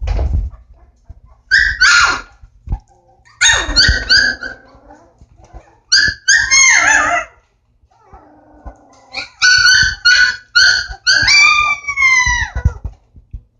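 Pit bull puppies whining and yelping in high-pitched cries that come in clusters, with short pauses between them. A run of cries builds from about nine seconds in and ends in a longer cry that falls in pitch.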